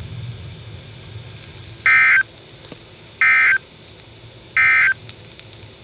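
Emergency Alert System (SAME) end-of-message data bursts: three short bursts of digital data tones about 1.3 seconds apart, the code that signals the end of the alert.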